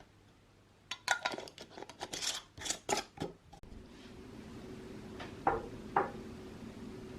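Kitchen utensils clinking and scraping against dishes in a quick run of sharp clicks about a second in. Then a steady low hum sets in, with two more single clinks over it.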